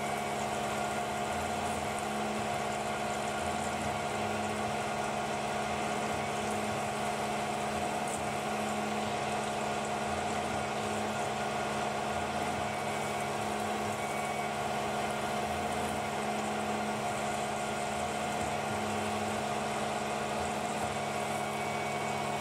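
Tormach PCNC CNC mill spindle driving an end mill through a metal part under flood coolant: a steady machining drone with a constant whine from the spindle and cut, and the hiss of coolant spray.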